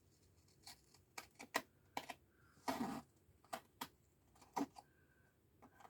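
Paper and dried glue crackling in short irregular clicks as the spine backing is peeled off a book's sewn signature, with one longer rasp about three seconds in.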